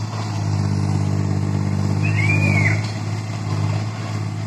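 Amphibious mini excavator's diesel engine running steadily as the machine works. A brief high squeal rises and falls about two seconds in.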